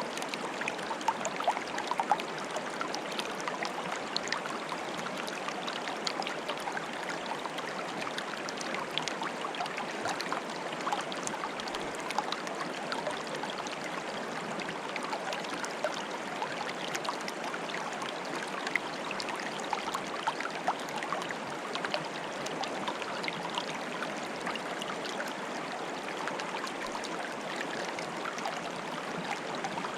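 Small stream of water bubbling and gurgling steadily, with many small splashes and pops.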